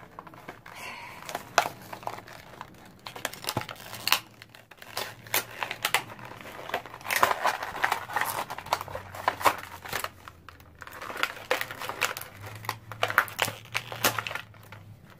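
Beyblade Burst toy packaging, cardboard box and plastic wrapping, being handled and opened: irregular crinkling and crackling with many sharp clicks.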